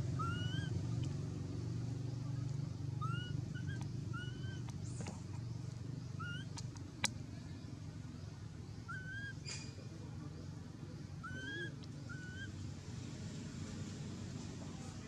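Short rising chirping calls, about one every second or so, over a steady low hum, with a single sharp click about halfway through.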